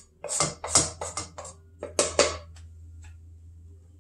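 Wooden spoon scraping and knocking against the inside of a saucepan as cooked vegetables are scraped out into a bowl: about seven quick strokes in the first two seconds or so, then a low steady hum.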